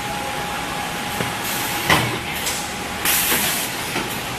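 Shrink-film packaging machine running as it wraps a pack of water bottles: a steady mechanical hum with a faint steady tone, a sharp knock about two seconds in, and a short burst of hissing about three seconds in.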